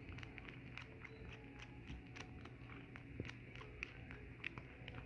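Tabby cat suckling on her own front paw: faint, irregular wet clicks and smacks, a few a second.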